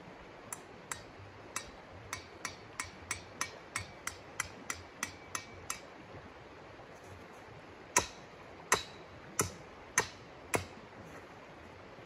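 Hammer driving a tent stake: a run of light taps that quicken to about three or four a second, then five much harder blows about two-thirds of a second apart. The steady rush of a river runs underneath.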